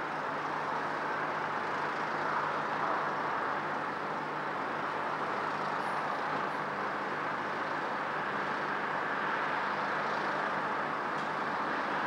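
Steady wash of road traffic noise, a continuous even rush with a faint low hum, with no single vehicle standing out.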